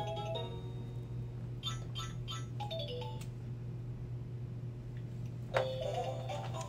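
Sparse background music: a few short chime-like notes and a brief descending run about three seconds in, with the tune returning more fully about five and a half seconds in. A steady low hum runs underneath.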